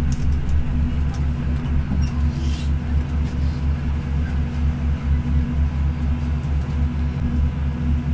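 Steady low hum and rumble inside a bus rolling slowly alongside a station platform, with an even low pulsing.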